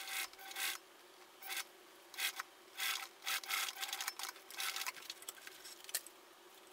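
Singer sewing machine stitching a seam in a series of short rasping spurts, which stop about five seconds in. A single click comes near the end.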